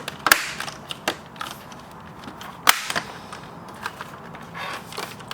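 Plastic keyboard case snapping shut, its clips clicking into place one after another along the sides: a few sharp snaps, the loudest about two and a half seconds in, with smaller clicks and handling noise between.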